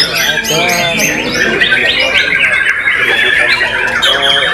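White-rumped shama (murai batu) singing very loudly in a continuous, rapid stream of varied chirps, trills and whistled glides, contest-style song.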